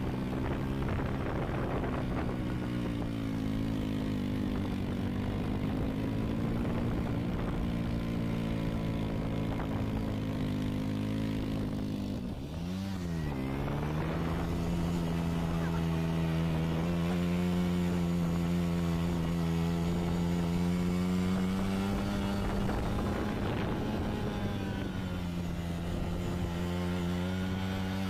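Motorcycle engine running while being ridden, heard from the rider's seat. About halfway through the revs drop sharply and climb back, then the engine runs steadily at a slightly higher pitch.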